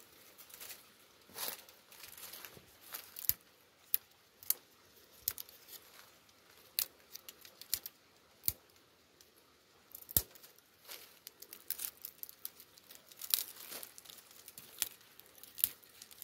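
Dry twigs on a bare tree being snapped and broken off by hand: a string of irregular sharp cracks, some louder than others, with the rustle of thin branches between them.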